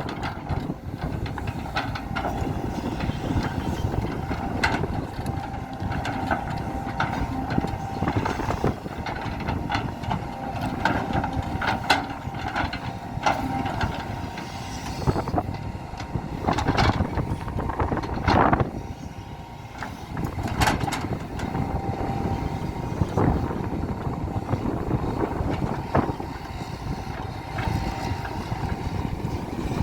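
JCB JS175W wheeled excavator at work levelling ground: its diesel engine runs steadily under load with a steady whine, over which come irregular clanks and knocks of the working gear, the strongest about 18 seconds in.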